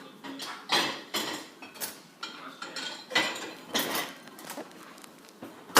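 Dishware clattering: a string of irregular clinks and scrapes, several a second.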